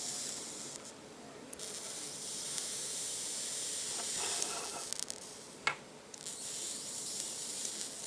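Hissing sizzle from the freshly built coil of an AC9 rebuildable atomizer being dry-fired on a mechanical mod, as the coil wraps glow red hot. It comes in three spells, breaking off about a second in and again near five seconds, with a sharp click before the last spell.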